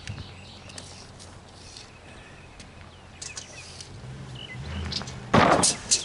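Outdoor background with a low steady hum and a few faint bird chirps, then a loud, brief burst of noise near the end.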